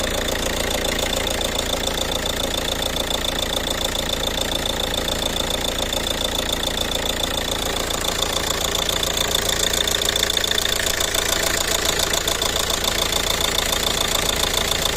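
Ford Kuga engine running steadily with a rapid, even ticking or knocking through it: the abnormal engine noise the owner is showing as a problem.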